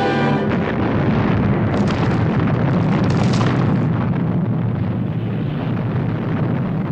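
Sound effect of a missile explosion: a long, loud rumbling blast with crackling debris, cutting in over orchestral music about half a second in and easing slightly toward the end.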